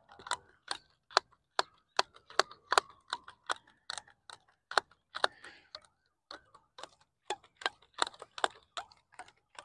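Fishing line being wound by hand onto a plastic water bottle used as a hand reel: the bottle clicks and crackles in a steady run of sharp clicks, about two to three a second, as each wrap is pulled on.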